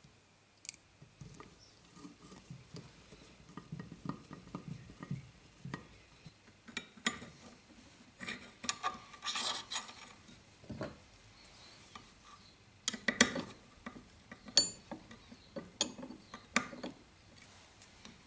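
Small steel engine parts being handled and fitted by hand: scattered clicks, light knocks and scraping of metal on metal, with a few sharper taps late on, one of which rings briefly.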